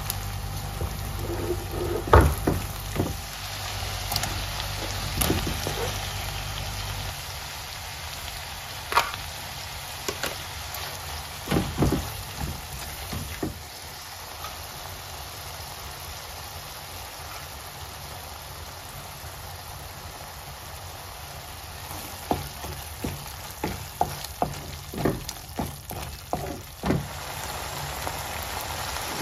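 Onion and tomato masala sizzling in hot oil in a nonstick pan, with scattered scrapes and taps of a silicone spatula against the pan as it is stirred.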